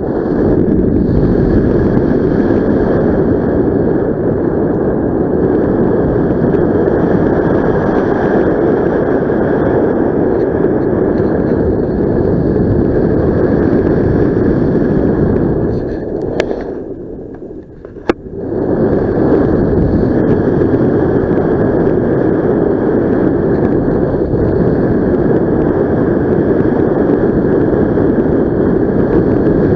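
Steady wind buffeting a helmet camera's microphone during a paragliding flight. The rush dips briefly about two-thirds of the way through, with a single click, then comes back.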